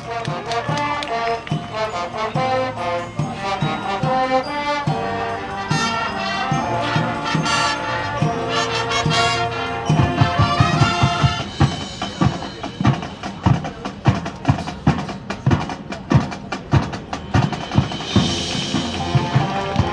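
High school marching band playing: brass chords over drums, with the drums coming to the front in a steady pounding beat about halfway through.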